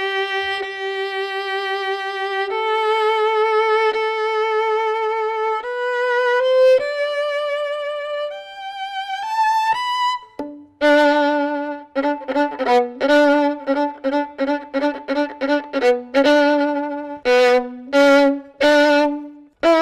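Solo violin bowed with an angled-frog (Galliane) bow. Slow, sustained notes with vibrato climb step by step, then about ten seconds in a quicker passage of short, detached notes begins.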